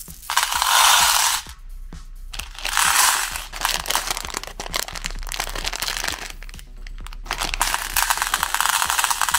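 Candy-coated chocolates spilling from hands onto a plate in two rushes, then the crinkle of a plastic candy wrapper being torn open, and from about three quarters of the way in a dense rattling stream of tiny candies pouring from the packet onto the plate.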